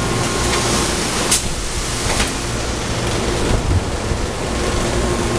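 Steady, loud industrial machinery noise from a thermoforming line and factory air, with a single sharp click about a second in.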